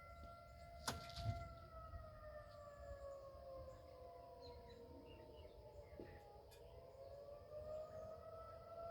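Outdoor tornado warning sirens sounding for a monthly test, their wail sliding slowly down in pitch for several seconds and then climbing again. A couple of sharp clicks come about a second in.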